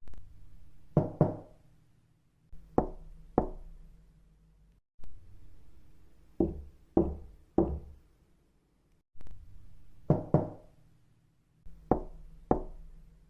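Knocking on a door: sharp knocks in short groups of two or three, each group a separate take with a pause between.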